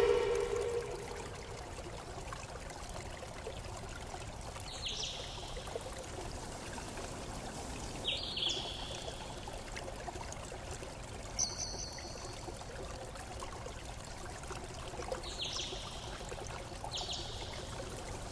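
Running water from a stream trickling steadily, with a bird giving short, high chirps every few seconds. It opens on the fading end of a louder, lower-pitched call.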